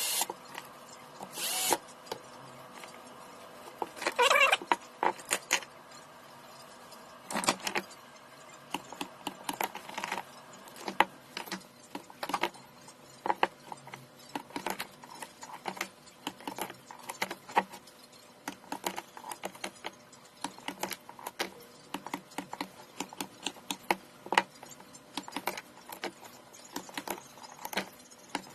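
Small clicks, taps and knocks of hands handling a cordless tool battery pack while new cells are fitted into it. A louder clatter comes about four seconds in, then a long run of small sharp clicks.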